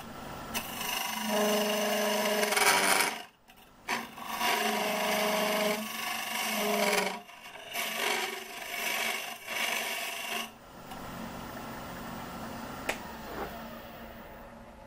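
Curved carbide hollowing tool cutting inside a spinning hard-maple vase on a wood lathe, in several bursts of a few seconds each, with a steady humming tone under the cuts from the tool vibrating. About ten seconds in, the cutting stops and only the quieter hum of the running lathe remains, with a few light clicks.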